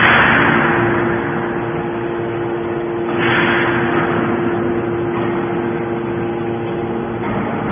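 Hydraulic scrap baler line running with a steady machine hum and held tones. Two loud noisy swells come about three seconds apart, each fading over about a second.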